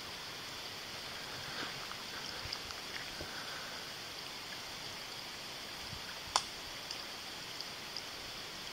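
Steady hiss of the woods at night, with a few faint crackles and one short, sharp snap a little over six seconds in.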